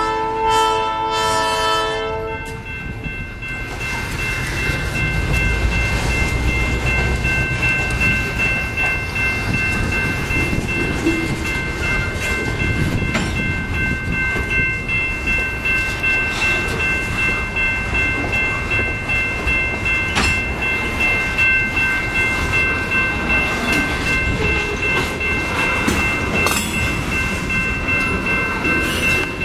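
A locomotive air horn sounds and cuts off about two seconds in. Then a freight train of covered hopper cars rolls past with steady wheel-on-rail rumble and clatter, while a grade-crossing bell rings at a steady high pitch throughout.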